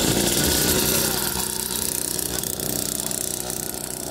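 Motorcycle engine running close by, loudest in the first second and then settling a little lower.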